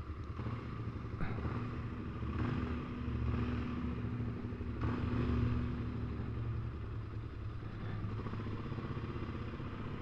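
Motorcycle engine running steadily at low revs, a continuous low hum with a slight swell about five seconds in.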